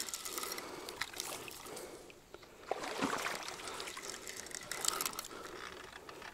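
Spinning reel being wound in fits, giving scattered soft clicks, while the line is held by a fish snagged under submerged roots; quiet water sounds at the bank underneath.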